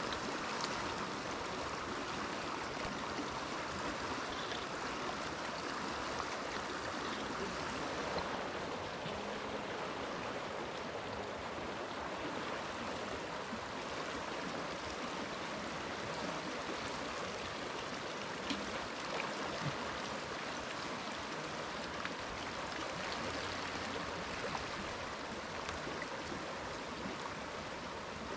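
A fast, shallow river rushing steadily over stones, with a few faint clicks.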